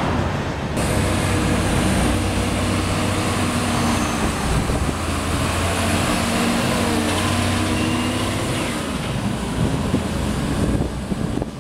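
Diesel engine of a Terberg terminal tractor running close by as it drives up a ship's loading ramp, a steady drone whose pitch drifts up and down a little.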